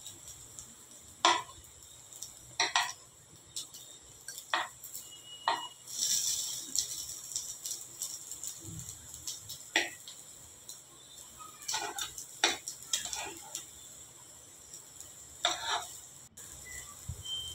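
A metal spoon clicks and scrapes against a non-stick appe pan as frying potato-cheese balls are turned in their cups, in irregular light taps. There is a faint sizzle of the balls shallow-frying in a little oil.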